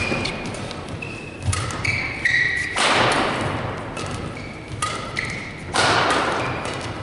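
Badminton rally: rackets striking the shuttlecock with echo in the hall, shoes squeaking in short high chirps on the court mat, and feet thudding as the players move and lunge.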